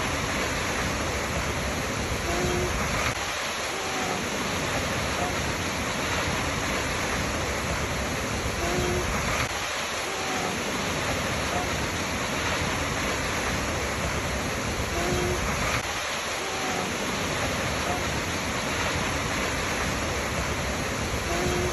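Waterfall rushing in a steady, unbroken roar of water, with faint short tones recurring about every six or seven seconds.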